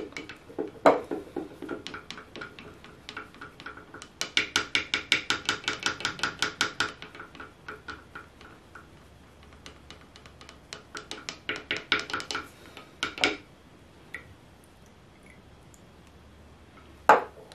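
Wooden stir stick stirring in a small glass beaker, knocking against the glass about five times a second in two runs, each knock leaving a short ring. One sharper knock comes near the end.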